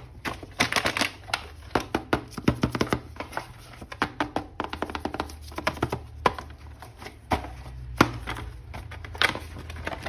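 A plastic action-figure package being opened and the figure handled: a dense, irregular run of plastic crinkles, clicks and taps.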